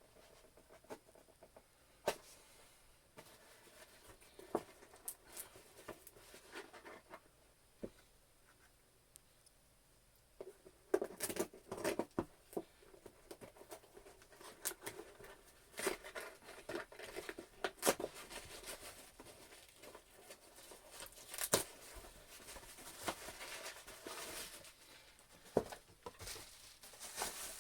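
A mail package being opened by hand: packaging tearing and crinkling, with scattered clicks and rustles of handling. There are only a few isolated clicks at first, then the tearing and rustling come thick and fast from about ten seconds in.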